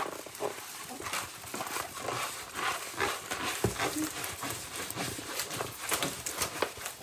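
Plastic-covered diamond painting canvas crinkling and rustling as it is unrolled and handled, in a run of irregular crackles.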